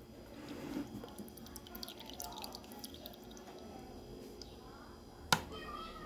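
Cooking oil pouring into a plastic blender jar onto sugar and eggs: a faint trickle with scattered small drips. One sharp knock about five seconds in.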